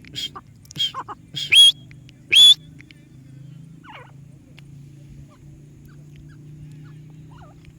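Parrot squawking: a quick run of short calls, ending in two loud, shrill ones about a second and a half and two and a half seconds in. After that only a few faint chirps over a low steady hum.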